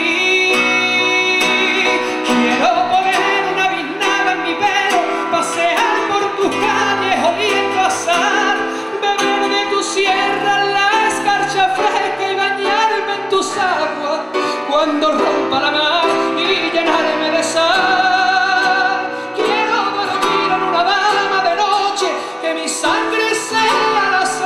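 Grand piano accompanying a man singing a long, wavering melodic line with no clear words, in a copla/flamenco-style song.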